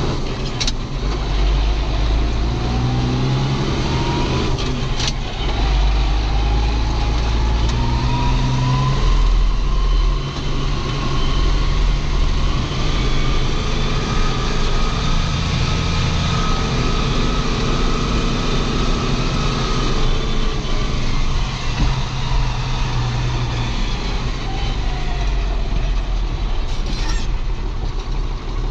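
Ford TW tractor's six-cylinder diesel working hard. A turbo whine rises over the first ten seconds, holds, then falls away near the end. A few short clicks are also heard.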